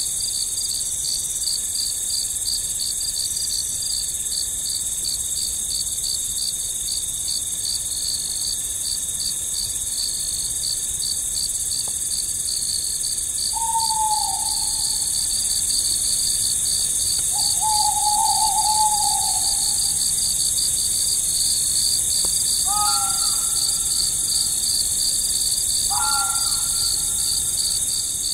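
Crickets chirping in a fast, steady pulse over a high insect hiss. From about halfway, four short calls sound a few seconds apart, each dropping in pitch at its end.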